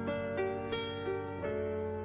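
Keyboard music: single notes about a third of a second apart over a held low chord, the last note sustained.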